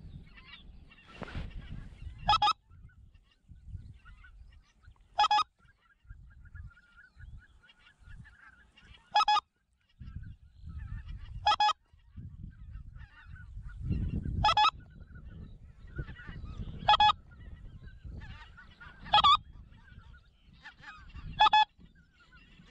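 Goose calling: eight loud, short single honks spaced every two to three seconds, with fainter goose calls and a low rumbling noise between them.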